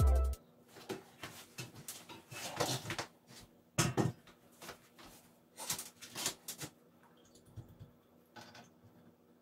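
Faint rustling and light knocks and clicks of painting gear being handled at a tabletop, in scattered short bursts over the first two-thirds, then only a few faint ticks.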